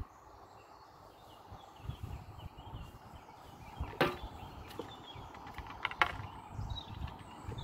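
Fishing tackle being handled: two sharp knocks about two seconds apart from the landing net and its handle, with a few lighter ticks around the second knock. A low rumble runs underneath and faint bird chirps come through.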